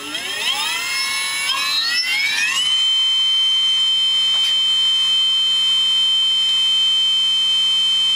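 MAC 2000W lawnmower electric motor spinning up with no load on a 15S battery (about 57 V): a whine rising steeply in pitch for the first two and a half seconds or so, then holding a steady high whine at its no-load top speed of roughly 3,900 RPM.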